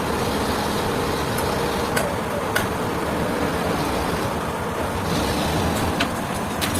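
Heavy engine-driven machinery running steadily with a low rumble, with a few sharp knocks about two seconds in and again near the end.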